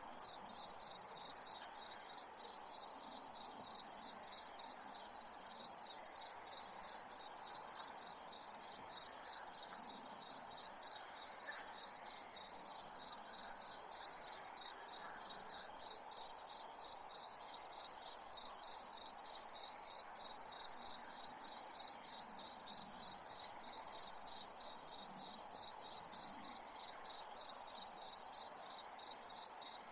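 Crickets chirping at night: a steady, high-pitched trill pulsing evenly a few times a second without a break.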